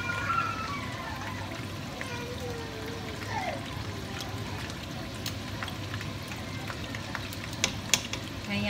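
Spring rolls deep-frying in a pan of hot oil: a steady sizzle, with two sharp clicks of the tongs a little before the end.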